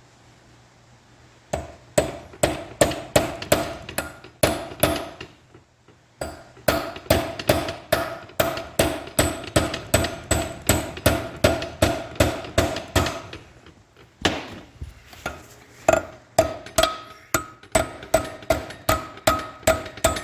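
Rapid hammer blows on metal, about three a second in three runs with short pauses, each blow ringing. A stubborn part of a John Deere 830 clutch is being driven out.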